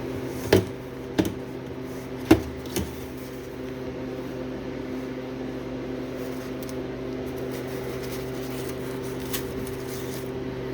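A steady machine hum with four sharp taps in the first three seconds, as the crisp, cracker-dry freeze-dried soup portions are handled.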